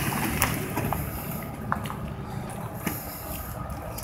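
Low, steady rumble of an approaching CSX freight train's diesel locomotives, still some distance off, with a few light clicks scattered through it.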